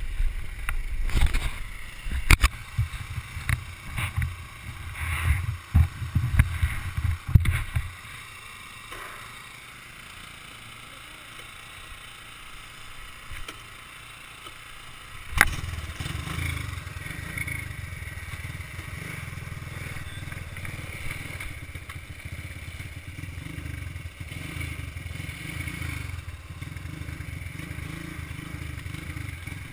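Clattering and heavy knocks as the ATV jolts over loose rock for the first several seconds, then a quieter stretch. A sharp knock comes just past halfway, after which a small ATV engine runs steadily.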